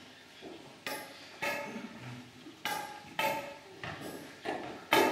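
A slow, uneven row of knocks on a hard tiled floor as people walk, about six or seven of them, each ringing briefly in the church.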